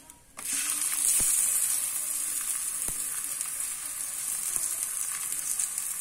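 Oil sizzling on a hot tawa under a bathua paratha as a spoon spreads it. The sizzle comes in suddenly about half a second in, is loudest around a second in, then holds steady.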